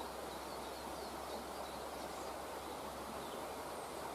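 Woodland ambience: a steady outdoor hiss with a few faint bird chirps.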